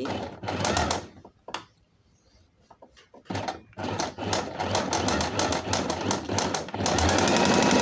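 Domestic electric sewing machine stitching a seam: a short run of stitches, a pause of about two seconds, then stitching again, settling into a fast, steady run near the end.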